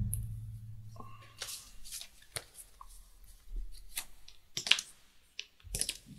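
Trading cards being handled on a playmat: scattered short slides, taps and clicks of cards. A low thump, likely a hand or object set down on the table, rings out and fades at the start.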